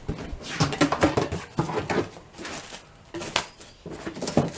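Irregular knocks, clatters and rustling from a new circular saw being handled.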